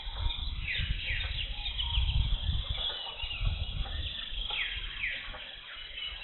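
Jungle birds calling with several quick falling notes, over an uneven low rumble that surges and fades.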